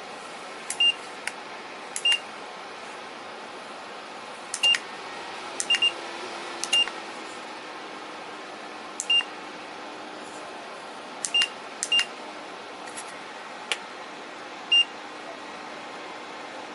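Minthouz PTC ceramic fan heater beeping in acknowledgement as its buttons are pressed to set the temperature: about nine short high beeps at one pitch, irregularly spaced, some with a click. The heater's fan runs steadily underneath, and a low hum starts about five seconds in.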